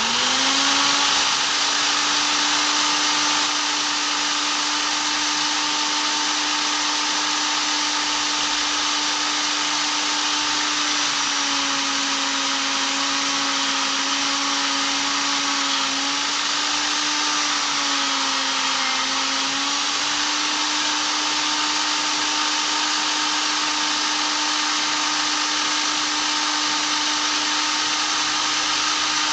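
Black+Decker corded electric drill spinning a foam polishing pad at a steady speed with a steady whine. Its pitch sags twice for a few seconds, from about eleven seconds in and again briefly around eighteen seconds.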